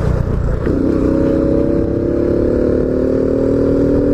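Honda Biz 125's single-cylinder four-stroke engine, breathing through a sports air filter, pulling the bike along on the road. The engine note dips briefly about half a second in, then climbs slowly and steadily, with wind rumble on the microphone underneath.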